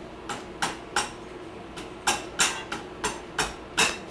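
Metal parts of a motorcycle's rear axle and chain adjuster block clinking and knocking under hand work: about ten sharp, irregular clicks.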